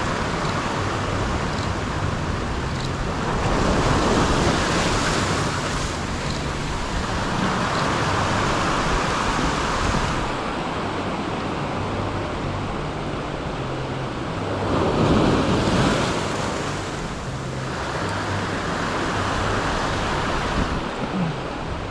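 Small sea waves washing in and breaking over a rocky, seaweed-covered shore in a steady wash of surf. It swells and fades every few seconds, loudest about fifteen seconds in.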